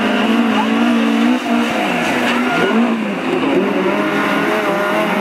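Engines of autocross special touring cars racing, several running at once, their pitch rising and falling as they rev and change gear.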